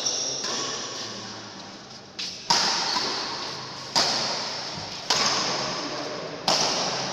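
Badminton racquets striking a shuttlecock in a doubles rally: four sharp hits starting about two and a half seconds in, roughly one to one and a half seconds apart, each ringing on in the hall's long echo.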